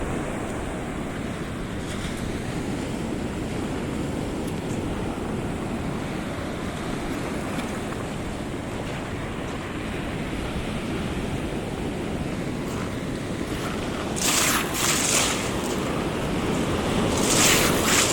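Pacific Ocean surf breaking and washing on the beach: a steady rumbling wash with wind on the microphone. There are two louder hissing surges, one about fourteen seconds in and another near the end.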